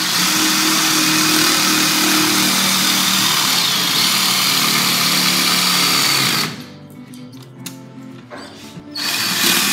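Cordless jigsaw running steadily as its blade cuts through the rubber sidewall of a tire. It stops about six and a half seconds in, with a few light clicks during the pause, then starts again near the end.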